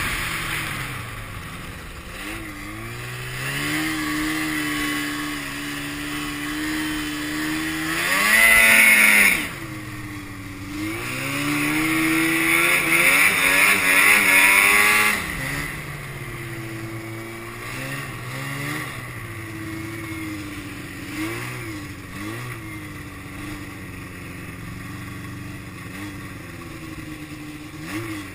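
1988 Yamaha Phazer snowmobile's two-stroke twin engine under way, its revs rising and falling with the throttle. It is loudest in two hard throttle pulls, a short one about eight seconds in and a longer one a few seconds later.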